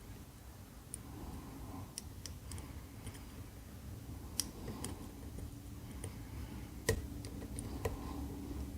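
Faint, scattered clicks of a flag pick working the pins of an ABUS EC550 dimple lock cylinder held under tension, about seven sharp clicks at irregular intervals.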